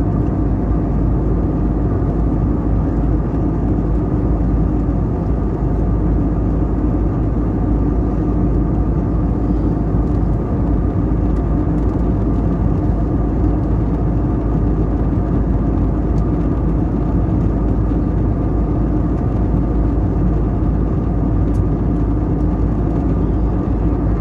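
Jet airliner cabin noise: the steady drone of the engines and airflow heard from inside the passenger cabin, with a low rumble and a few steady hum tones over it.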